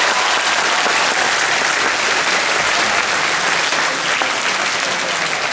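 Audience applauding steadily, easing a little near the end.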